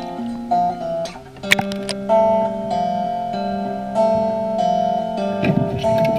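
Background music led by plucked guitar, playing sustained notes that change in steps.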